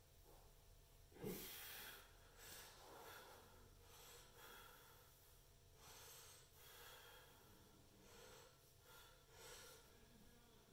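Faint, heavy breathing of a man straining to hold one-hand breakdance freezes: short hard exhales about once a second, the strongest about a second in.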